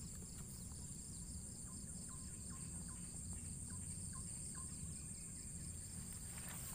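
Faint steady insect chorus of crickets or cicadas: a continuous high-pitched drone with a fast, regular pulsing chirp beneath it. A run of short, falling chirps comes through in the middle, with a low rumble underneath.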